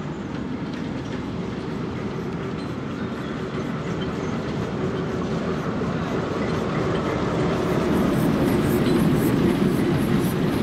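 Class 08 diesel shunter running on the move with a small locomotive in tow: a steady engine and wheel rumble that grows louder as the train approaches, with light clicking from the wheels on the rails in the last few seconds.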